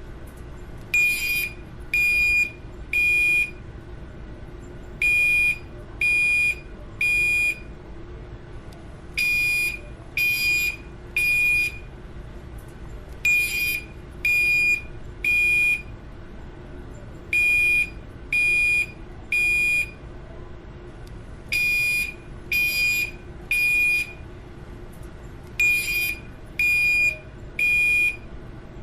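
Building fire alarm sounding the temporal-three evacuation signal: three high beeps about a second apart, then a pause, the group repeating about every four seconds.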